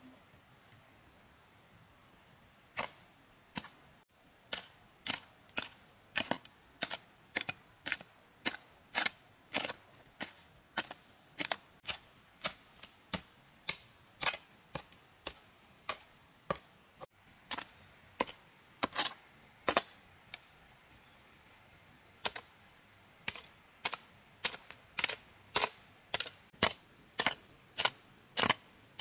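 Hand tool striking wood in a steady series of sharp blows, about one to two a second with a couple of short pauses, starting about three seconds in. A steady high insect drone runs underneath.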